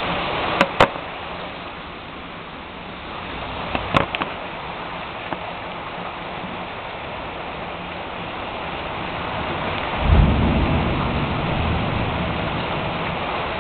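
Steady rain falling in a thunderstorm, with a thunderclap breaking in about ten seconds in as a deep rumble that slowly fades. A few sharp clicks come in the first four seconds.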